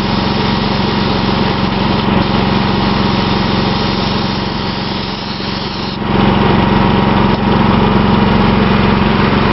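A small gas engine running steadily, most likely powering the air supply for a primer spray gun, with a constant hiss of air over it. The sound gets louder about six seconds in.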